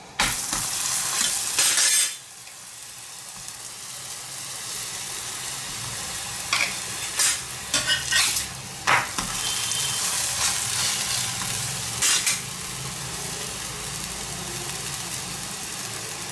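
Millet-and-vegetable paratha frying in ghee on a hot tawa: a loud sizzle in the first two seconds as ghee is spooned onto the griddle, settling into steady sizzling. A metal spatula scrapes and taps on the griddle a few times in the middle as the paratha is lifted and turned.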